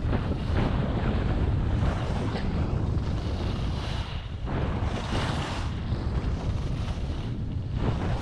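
Wind buffeting an action camera's microphone as a skier descends at about 40 km/h, under the hiss and scrape of skis carving on groomed snow. The scraping swells at the turns, loudest about five seconds in.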